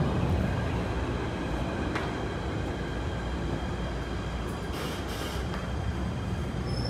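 Steady low hum and rumble inside a PATH PA-5 subway car standing at a station with its doors open.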